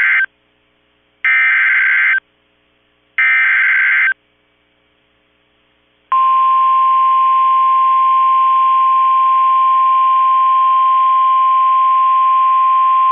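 NOAA Weather Radio Emergency Alert System opening: the end of one SAME header data burst, then two more loud data bursts of about a second each, a second apart. After a pause of about two seconds, the weather radio's steady single-pitch 1050 Hz warning alarm tone starts and holds, signalling the flood warning to follow.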